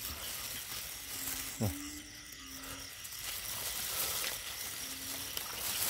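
Narrow-mouthed frogs ('ueng') calling: short, low notes that come about every second or two, over a steady hiss. A brief rising chirp-like sound stands out about a second and a half in.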